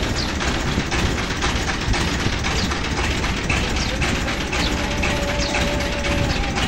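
A boat's Dongfeng single-cylinder diesel engine running steadily at idle.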